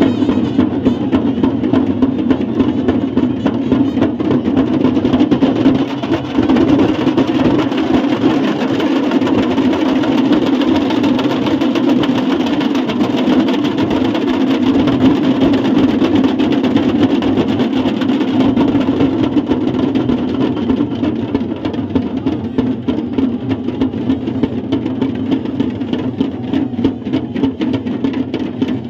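Processional drums beating continuously amid the din of a large street crowd.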